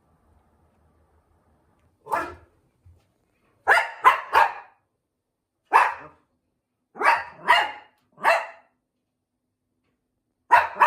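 Toy poodle barking: about nine short, sharp barks in irregular groups of one to three, starting about two seconds in.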